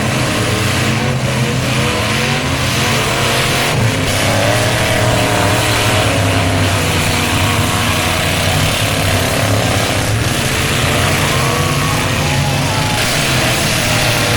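Demolition derby cars' engines running loud and revving, their pitch rising and falling, with a single knock about four seconds in.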